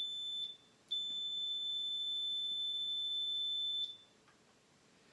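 Fieldpiece multimeter's continuity beeper sounding one high, steady electronic tone: a short beep, then a longer beep of about three seconds. The beep signals a closed circuit between the test probes.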